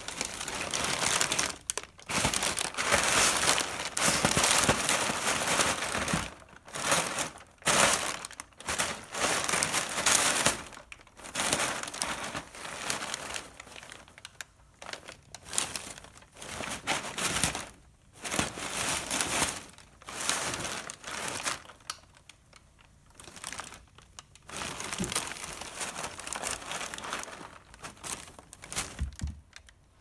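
Brown packing paper crinkling and crunching as a cat attacks it inside a cardboard box: irregular bursts of rustling with short pauses, busiest and loudest in the first half, sparser and softer later.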